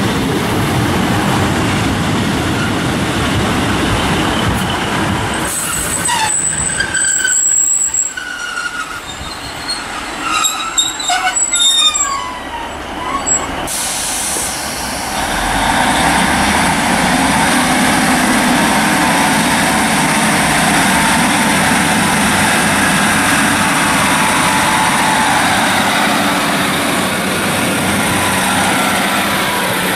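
Class 150 Sprinter diesel multiple unit moving through the station with a steady rumble of engine and wheels. Between about six and thirteen seconds in come several high, gliding metal squeals from the running gear, and after that the engine runs steadily with a low hum.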